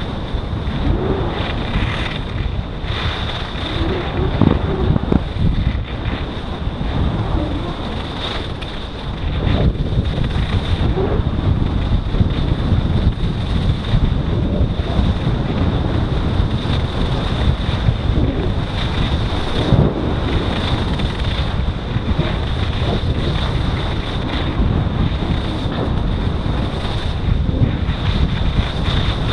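Wind rushing and buffeting over an action camera's microphone on a fast ski descent, mixed with skis hissing and scraping over the snow. A thin, steady high tone sits underneath.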